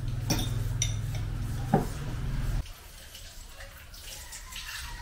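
A metal spoon clinking against small jars and a mug on a table: a few sharp clinks in the first two seconds, the loudest just before the two-second mark. A steady low hum underneath stops suddenly about two and a half seconds in.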